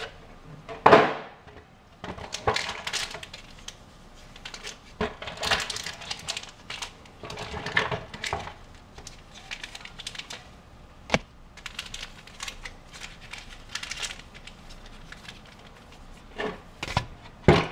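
A collection box and its packaging being opened by hand: irregular rustling and handling noise with scattered clicks and knocks. There is a loud knock about a second in and a sharp click about eleven seconds in.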